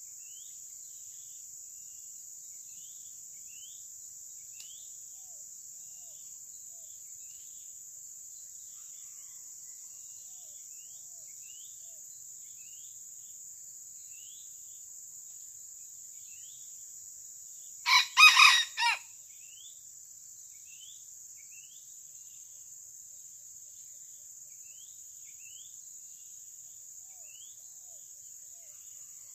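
Red junglefowl rooster crowing once, a short crow of about a second broken into four quick pulses, over a steady high drone of crickets and faint repeated rising chirps.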